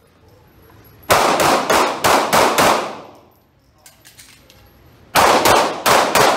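Pistol shots fired in fast strings, each shot with an echoing tail from the indoor range: about six rapid shots starting about a second in, a pause of about two seconds, then another quick string of about four shots near the end.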